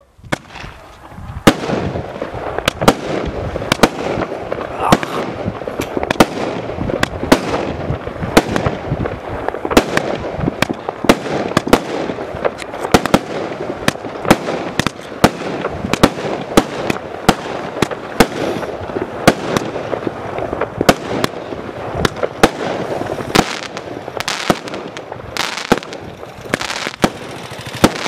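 Casino 1.3G firework barrage cake firing: a fast, irregular run of sharp shots and bursting reports, several a second, over a continuous hiss and crackle. It starts abruptly at the outset, and the bangs come thicker near the end.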